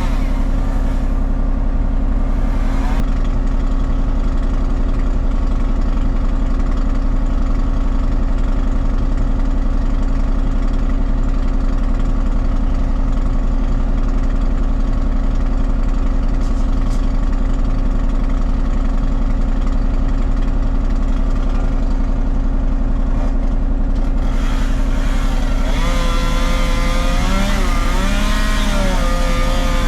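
An engine running steadily. Near the end more high sound comes in, and the pitch rises and falls a few times.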